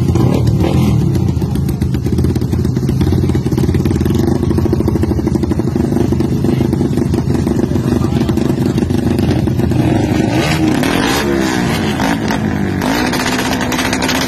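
Modified drag-racing motorcycles on their stands with engines running at a steady high idle. From about ten seconds in, the engines are revved up and down, their rising and falling pitches overlapping.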